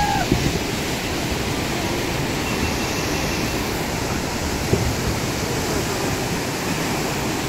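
Fast-flowing muddy river rushing through rapids: a steady, even rush of water.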